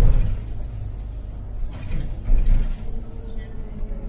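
City bus under way, heard from inside the cabin: a steady low engine and road rumble with the body and fittings rattling. Louder rattling jolts come at the start and again about two and a half seconds in.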